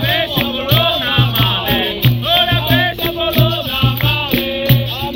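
Live capoeira roda music: voices singing over a steady low hand-drum beat, about two beats a second, with the rattle of a shaker and sharp percussive clicks.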